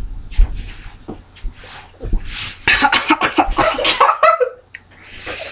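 A girl drinking a shot of lemon juice, then coughing and sputtering from the sour juice in a run of ragged bursts from about two seconds in.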